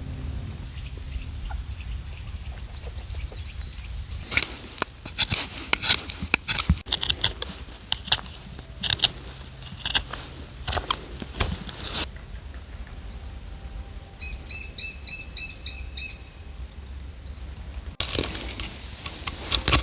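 Birds chirping, with irregular bursts of flapping or rustling noise, and a quick run of high, evenly repeated call notes about two-thirds of the way in.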